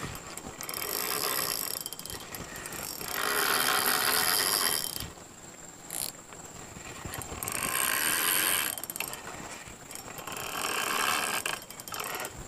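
Fishing reel being wound in four bouts of a second or two each, with a fast mechanical clicking from its gears. The line is snagged on a tree.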